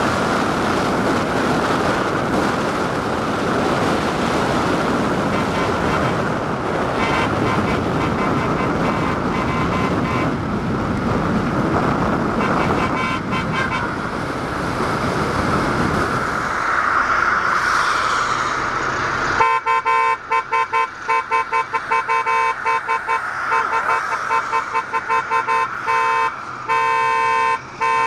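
Steady road and wind noise of a moving car. About two-thirds of the way in, this gives way to a 060-DA diesel locomotive's whistle sounding a long run of short, repeated blasts, each a steady chord of several tones.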